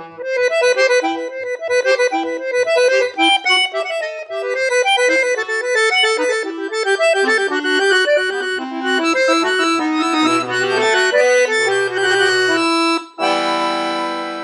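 Solo accordion playing a fast running melody over short, regular bass notes. About a second before the end it lands on a loud, full held chord that begins to fade.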